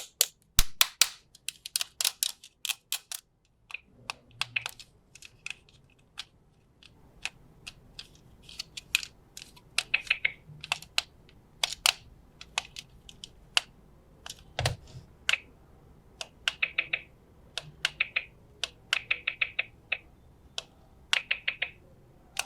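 Small plastic pieces of a toy doctor playset being handled and set down, a long irregular run of sharp light clicks and taps with a few short rattling clusters.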